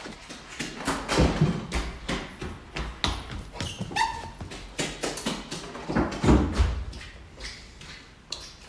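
A person's footsteps and heavy, panting breathing during a chase on foot, with two heavy thuds (about a second in and again about six seconds in) and a short squeak around the middle.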